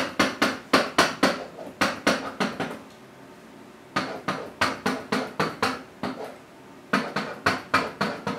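Pen knocking and tapping on an interactive whiteboard's surface while writing, about four or five sharp knocks a second, in three quick runs with two short pauses.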